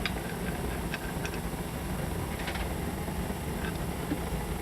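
A steady low engine-like rumble runs throughout, with a few light metallic clicks of hand tools and parts as bolts and a gasket are fitted to the race engine being reassembled.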